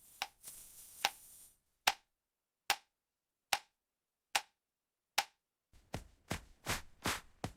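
A series of sharp taps, about one every second at first, then coming faster and closer together near the end.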